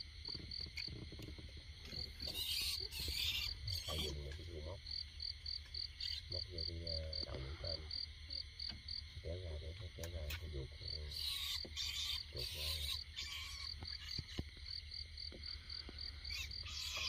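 Insect chirping: short high chirps about five a second, in runs of a few seconds with pauses between. Leaves and branches rustle and snap in several bursts as someone pushes into dense brush, loudest a few seconds in and again around the middle.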